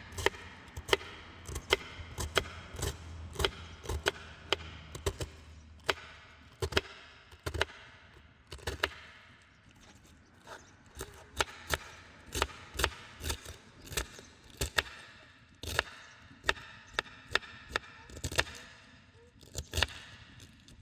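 Knife chopping vegetables: sharp chops about two a second, in runs broken by a few short pauses.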